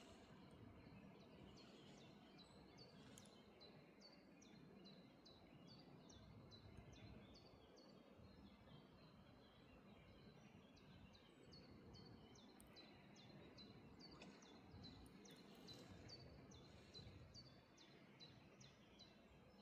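A bird chirping over and over in short, falling notes, about two a second, with a brief pause midway, faint above a low, steady background rumble.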